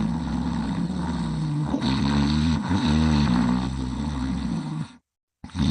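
Snoring: one long, low-pitched snore whose pitch wavers near the middle, cutting off suddenly about five seconds in; after a brief silence the next snore starts just before the end.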